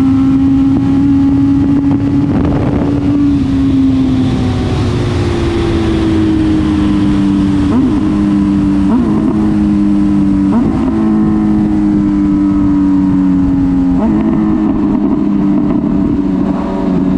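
Honda CB1000R inline-four motorcycle engine heard onboard at a fairly steady cruise, its note sinking slowly early on. A few brief, quick flicks in pitch come partway through, with a small step up in the note later on.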